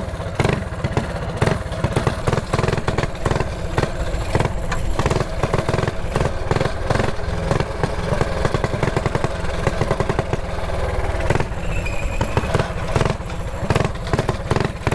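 Mini bike's small engine running steadily while being ridden, heard close up from a chin-mounted helmet camera, with wind noise on the microphone.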